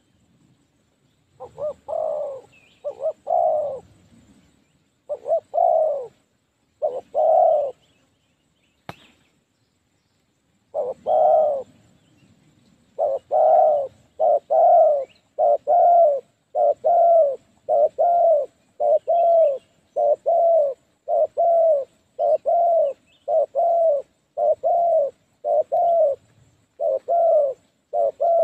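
Spotted dove cooing: a few coos in the first seconds, then, after a pause broken by one sharp click, a steady run of coos about one a second.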